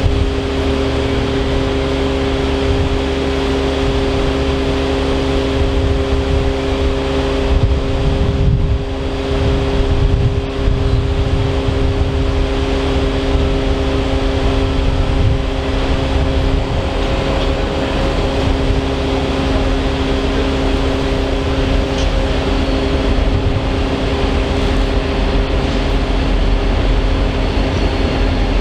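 Two G-class diesel-electric freight locomotives rumbling as they approach at low speed: a steady engine drone with several held tones over a low rumble, the rumble strengthening near the end as they come close.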